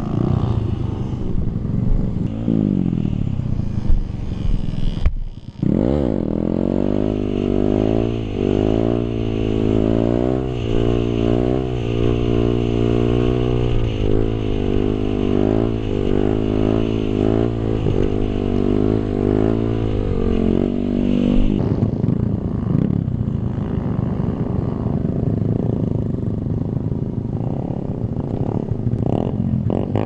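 Kawasaki KLX/D-Tracker's single-cylinder four-stroke engine running hard through a circle wheelie, its pitch rising and falling in quick waves as the throttle is worked to hold the front wheel up. There is a brief break about five seconds in, and after about twenty seconds the sound turns to a rougher, steadier engine noise.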